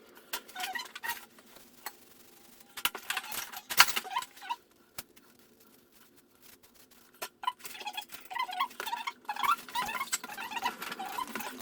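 Copper pipe and fittings being handled and worked by hand: irregular light metal clicks and clinks with short squeaky rubbing, quieter for a couple of seconds in the middle.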